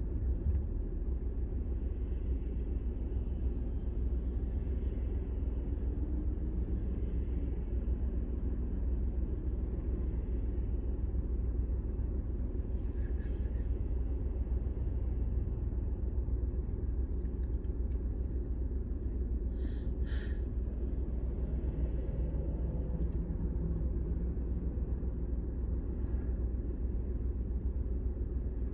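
Steady low rumble inside a car's cabin while it idles in stop-and-go traffic at a red light, with a couple of brief, faint higher-pitched sounds near the middle.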